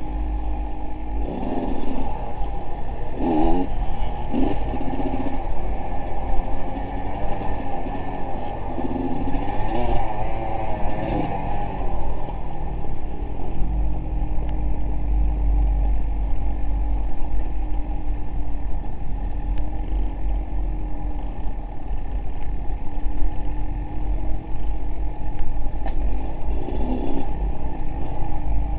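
A motor vehicle's engine running steadily with a low rumble, with a few brief louder spells.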